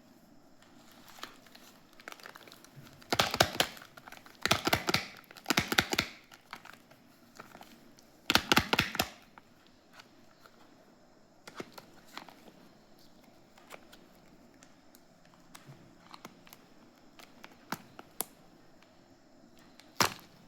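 Soap packaging being crinkled and torn open by hand, in four loud bursts of crinkling in the first half, followed by scattered light clicks and taps and one sharp click near the end.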